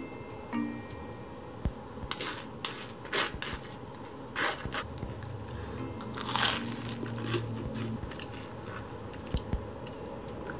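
Crisp toast being bitten and chewed: several separate crunches.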